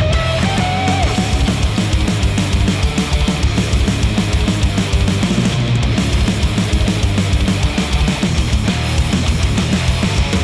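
Heavy rock track with electric guitars and a steady, driving drum beat, played through HIFIMAN Edition XS open-back headphones and picked up by microphones at the earcups.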